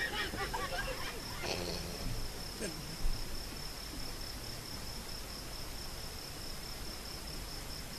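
Steady high-pitched chirring of crickets, with faint voices in the first couple of seconds and a single short knock about three seconds in.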